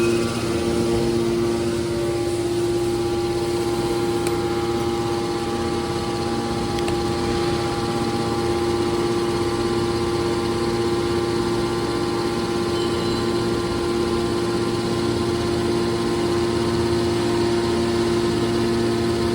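Hydraulic scrap car baler running, a steady machine drone with a constant hum.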